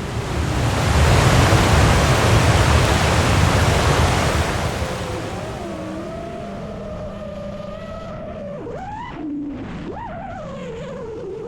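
Rushing air noise that swells and fades over the first few seconds, then the FPV drone's propellers and motors whining, the pitch sliding up and down with the throttle and swooping sharply twice near the end.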